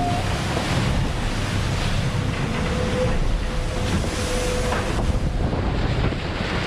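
IMOCA 60 racing yacht sailing fast: a steady rush of water and spray along the hull with heavy wind buffeting on the microphone. A faint steady whine comes in for a couple of seconds midway.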